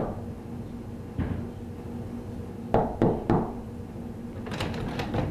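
Knuckles knocking on an apartment door: one knock at the start, a lighter one about a second in, then three quick knocks about three seconds in. Near the end comes a quick run of light clicks.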